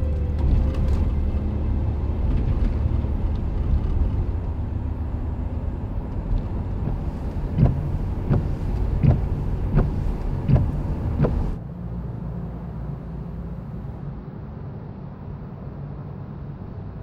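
Car driving, a steady low road-and-engine rumble heard from inside the cabin, with a run of about six sharp clicks, evenly spaced about three-quarters of a second apart, past the halfway mark. The rumble cuts off suddenly about two-thirds of the way through, leaving a quieter, steady street background.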